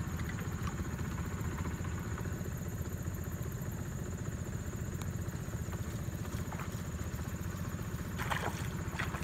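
Small outboard motor idling steadily with an even low pulse, and a short rustle near the end.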